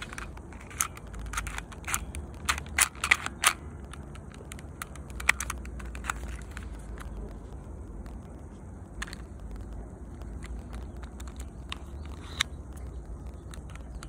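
Mechanical clicks and scrapes of a small Dong San Browning Baby airsoft pistol being handled, with a quick cluster of sharp clicks in the first few seconds and a few single clicks later, over a low steady rumble.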